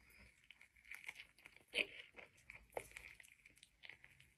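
Close-up biting and chewing of a large burrito: faint tearing of the soft tortilla and wet mouth clicks, with one sharper crunch just under two seconds in.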